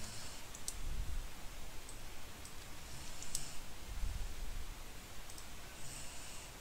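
A few scattered clicks from a computer keyboard and mouse as a captcha answer is typed and submitted. The sharpest come about two-thirds of a second in and just after three seconds in.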